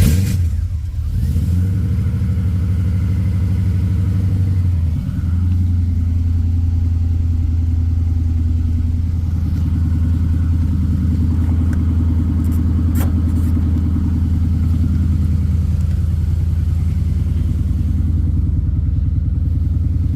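Aluminium 5.7 L LS1 V8 in a BMW E36 just after a cold start, catching with a brief flare and then settling into a steady idle through its headers and custom exhaust.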